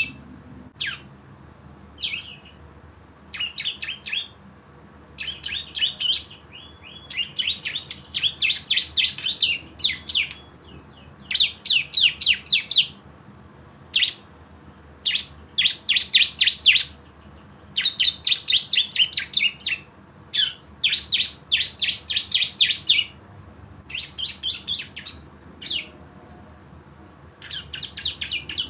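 Ciblek (prinia) singing its 'ngebren' song: bursts of very rapid, machine-gun-like repeated high chirps, about half a second to a second and a half each, over and over with short pauses between.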